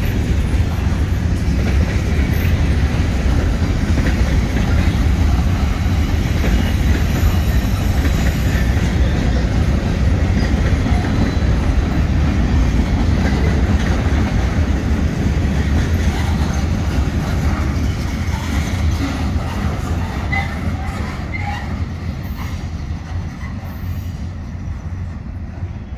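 Norfolk Southern freight train's covered hoppers and tank car rolling past, steel wheels running on the rails with a steady rumble. The sound fades over the last several seconds as the end of the train goes by.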